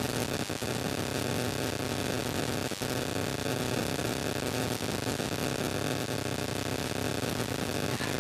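A steady, even rushing noise with a few faint clicks.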